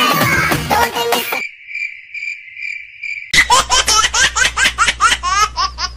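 A cricket-chirping sound effect: an evenly pulsed high chirp, a few chirps a second, with the music cut away beneath it. After about three seconds it gives way to high-pitched laughter, a rapid run of short rising giggles that quicken toward the end. The song is heard briefly before the chirping starts.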